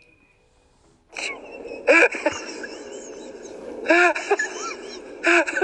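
A person's breathy, wheezing vocal sounds, starting about a second in: heavy breath noise with short rising-and-falling cries over it.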